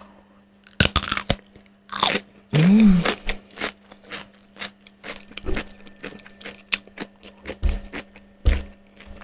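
A fresh cucumber bitten with a crunch about a second in, then chewed with many irregular crunching clicks, close to the microphone.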